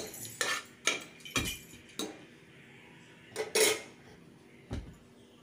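Metal kitchenware clinking and knocking, around an aluminium pressure cooker on the stove: a handful of separate sharp knocks, with a longer clatter about three and a half seconds in.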